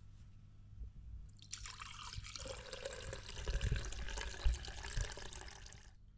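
Liquid being poured steadily into a bowl, starting about a second and a half in and stopping shortly before the end, with a couple of dull knocks partway through.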